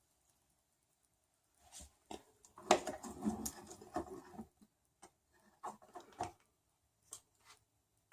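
Printer kit parts being handled on a workbench: scattered clicks, then a cluster of light knocks and rattling about three seconds in as a bearing-fitted part is set in place, and a few more clicks near the end.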